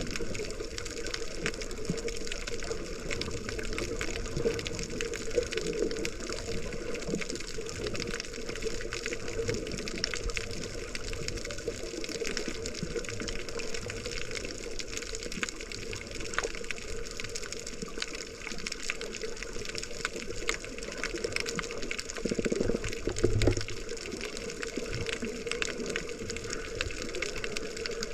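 Water sloshing and rushing around a GoPro in its waterproof housing while snorkeling, a continuous muffled wash with a louder low surge about four-fifths of the way through.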